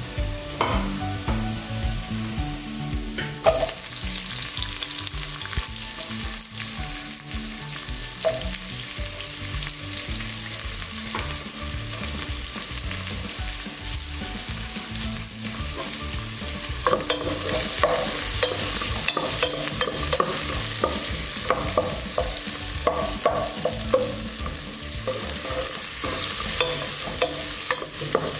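Sliced red onions and ginger sizzling steadily in hot oil in a pot, sautéed as the first step of the dish. A spatula scrapes and knocks against the pot as they are stirred, more often in the second half.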